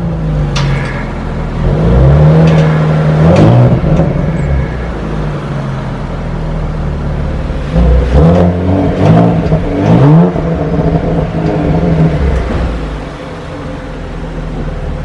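Audi RS car engine idling and being blipped: the revs rise and fall sharply a couple of times near the start, then in a quick series of blips around the middle, with a few sharp cracks from the exhaust, before settling back to a steady idle.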